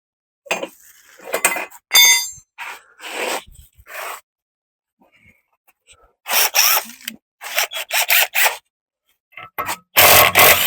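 Metal hand tools scraping and clinking against metal car parts in short, irregular bursts. There is a ringing metallic clink about two seconds in and a longer, louder scraping burst near the end.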